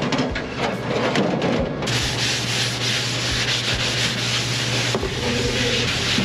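Maroon abrasive pad scrubbed back and forth by hand over a bare metal aircraft panel: a steady rasping hiss that sets in about two seconds in.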